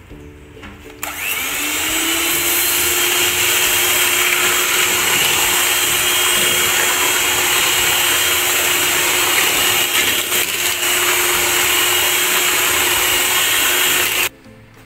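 Electric hand mixer switching on about a second in, its motor whine rising as it comes up to speed, then running steadily as its beaters whip egg yolks and sugar in a stainless steel bowl. It cuts off suddenly near the end.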